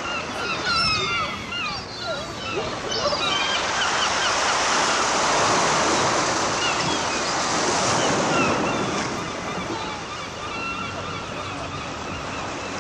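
Surf washing on a sand beach with wind on the microphone, swelling toward the middle. It opens with a cluster of short, high, gliding calls in the first three seconds.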